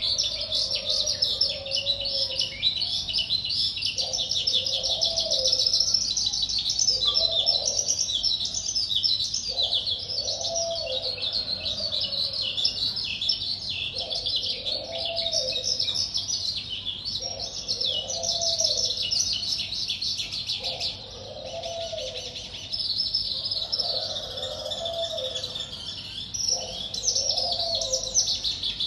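Caged wild-caught songbird, about a month into captivity, singing a continuous stream of quick high chirps and trills. Underneath, a lower, arched call repeats about every two seconds.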